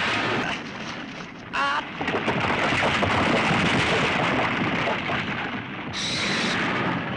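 Film sound effects of a large explosion and the fire after it: a dense, steady rush of noise, with a brief wavering tone about a second and a half in and a high hiss starting near the end.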